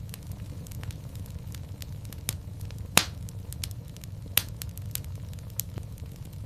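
Fire in a fireplace crackling, with a steady low rumble of flame under scattered snaps. Two loud pops stand out, about halfway through and again a second and a half later.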